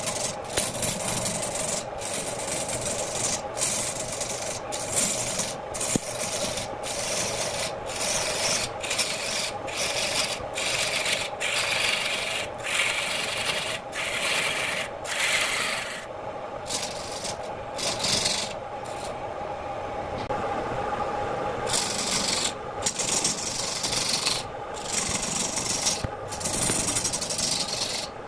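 Hand-held gouge cutting into a redwood blank spinning on a wood lathe: a rough shaving, scraping hiss in repeated passes with short breaks about once a second, over the steady hum of the lathe's electric motor. Just past the middle the cutting stops for several seconds, leaving mostly the motor hum, then resumes.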